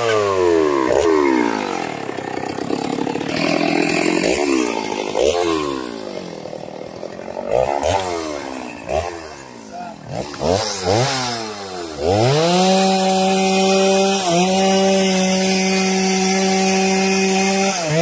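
Two-stroke chainsaw dropping from full-throttle cutting toward idle as it finishes a cut through a mahogany log, then revved up and down several times. About twelve seconds in it climbs to high revs and holds there, with one brief dip.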